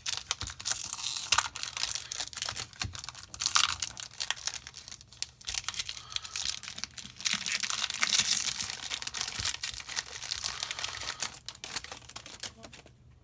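A Yu-Gi-Oh booster pack's foil wrapper being torn open and crinkled by hand: a dense crackling full of small clicks that thins out near the end.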